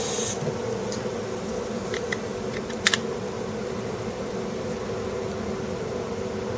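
Steady electric hum of a screen lamination machine running its cycle, with a few light clicks and a sharp double click about three seconds in.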